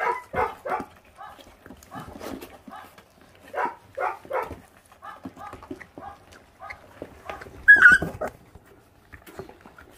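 Four-week-old puppies making short, repeated yips and growls while they chew raw meat on the bone, guarding the food from one another. One louder, higher yelp comes about eight seconds in.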